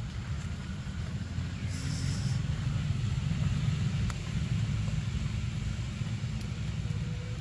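Steady low rumble, with a short high hiss about two seconds in and a faint click about four seconds in.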